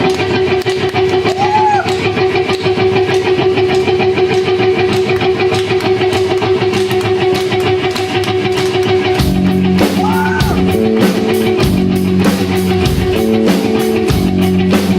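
Rock band playing live: guitars and drum kit in an instrumental intro, with a held guitar note over a steady drum beat, then the guitars switch to a choppy riff about nine seconds in.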